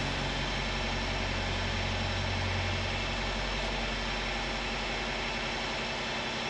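New Holland Workmaster 25s compact tractor's diesel engine running steadily, started after a hydraulic fluid and filter change to test the hydraulics and PTO.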